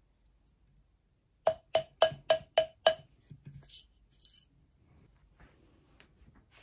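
Six quick blows of a rubber-faced mallet on brass wire wrapped around a steel ring mandrel, each leaving a short metallic ring as the wire is shaped into a ring. A few fainter clinks follow.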